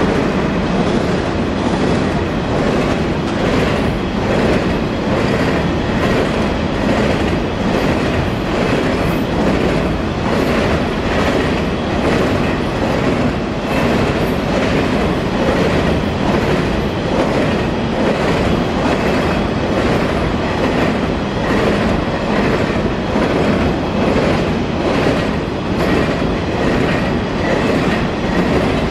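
Freight train of container flatcars rolling past at speed, its wheels clattering in a steady repeating rhythm over the rail joints. The sound is loud and continuous, with no pause.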